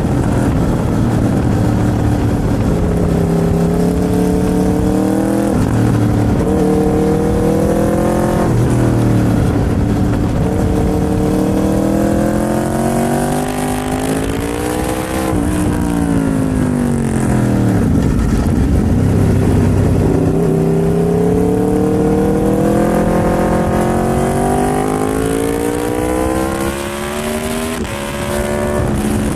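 Aprilia RSV4's V4 engine under way, pitch climbing through the gears with a sudden dip at each upshift. About halfway through it winds down as the bike slows, then it accelerates through the gears again with another shift near the end.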